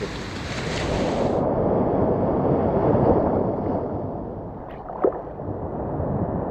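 Wind on the microphone mixed with surf washing on the beach, a steady noise that swells about two to three seconds in, with one short knock about five seconds in.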